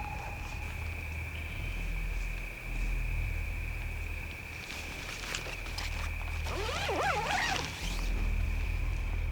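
Eerie horror-film sound design: a steady high-pitched whine over a low hum, broken about two-thirds of the way through by a brief flurry of fast, squeaky chirps.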